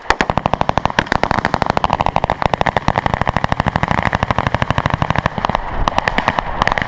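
Sustained automatic gunfire: a long, unbroken string of rapid shots, about ten a second.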